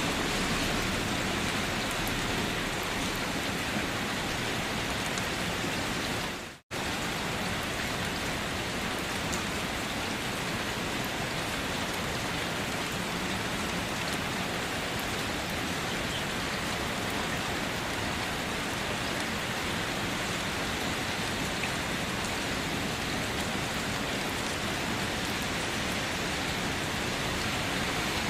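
Steady rain falling. It cuts out for a split second about six and a half seconds in, then resumes unchanged.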